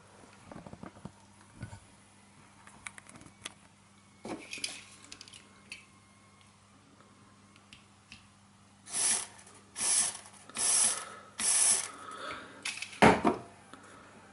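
Aerosol throttle body cleaner sprayed through a motorcycle fuel injector in four short hissing bursts about a second apart, starting about nine seconds in, then one sharp knock. Light handling clicks come before the spraying.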